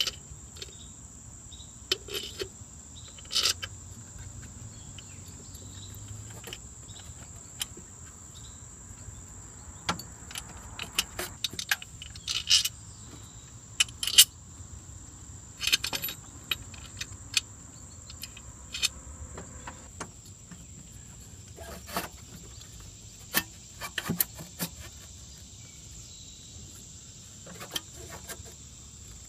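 Irregular metallic clicks and clinks as bolts and the metal intake elbow and throttle body of a Ford F-250 diesel are handled and worked loose by hand, some clinks sharp and loud. A steady high-pitched drone runs underneath.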